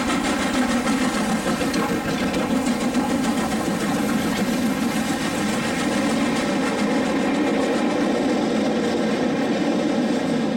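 Two LMS Black 5 4-6-0 steam locomotives, 45407 and 44871, double-heading and working hard: a fast, steady exhaust beat as they pass close by and draw away with their coaches.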